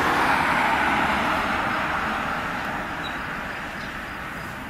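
Jet engines of an Airbus A330-300 at takeoff thrust just after liftoff: a steady roar that slowly fades as the airliner climbs away.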